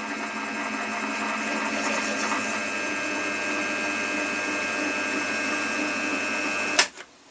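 Mill-drill spindle turning a thread tap at 200 RPM into an aluminium casting, a steady motor hum with a constant high whine. It cuts off suddenly with a click near the end as the machine is switched off.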